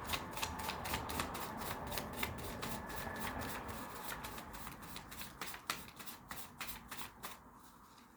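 A deck of tarot cards being shuffled by hand: a quick run of soft card snaps, about four a second, that stops about seven seconds in.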